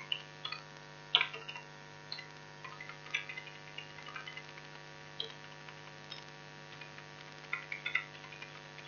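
Computer keyboard keys clicking in short irregular runs as numbers are typed, over a steady electrical hum.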